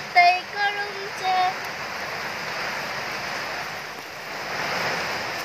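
Steady rain falling, an even hiss. A voice singing fades out in the first second and a half.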